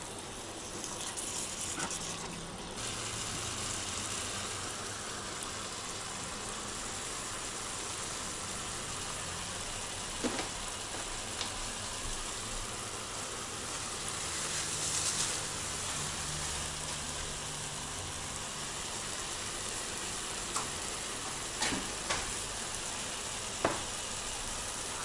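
Fried beet, carrot and onion in tomato juice simmering and sizzling steadily in a frying pan, with a few sharp pops.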